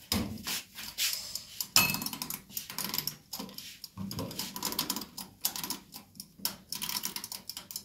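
A gas cooker's mechanical timer knob being turned to set the oven timer, giving a run of small irregular clicks.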